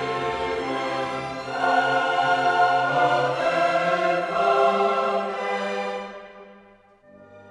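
Background classical music: a choir singing with an orchestra, swelling louder about a second and a half in, then fading away about six seconds in before a quieter orchestral passage begins near the end.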